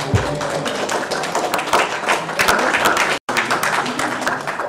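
Audience applauding, a dense patter of many hands clapping, with a few voices mixed in. There is a thump right at the start, and the sound cuts out for an instant about three seconds in.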